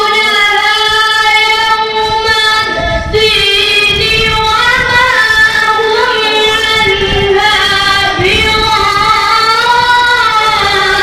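A boy's high voice reciting the Quran in a melodic tilawat style, holding long notes with ornamented turns of pitch, with a short breath break about three seconds in.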